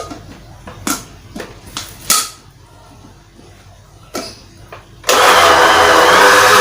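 A few clicks and knocks as a kitchen appliance is handled. About five seconds in, an electric blender or food chopper starts abruptly and runs loudly and steadily, its motor pitch wavering as it grinds the bait mixture.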